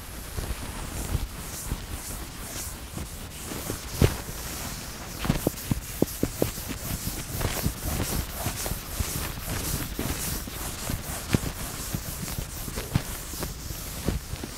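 Chalkboard eraser rubbing across a blackboard in repeated strokes, mixed with footsteps and scattered knocks, the sharpest about four seconds in.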